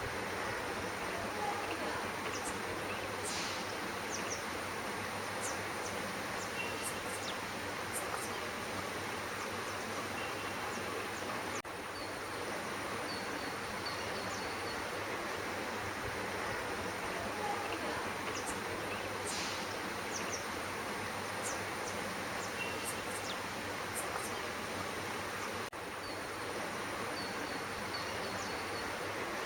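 Steady outdoor background hiss with a thin, constant high-pitched whine, broken now and then by a few faint, short, high chirps.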